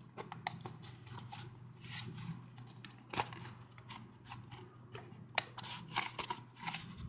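Scraping, rustling and irregular small clicks as a smartwatch is worked by hand out of its cardboard box and insert.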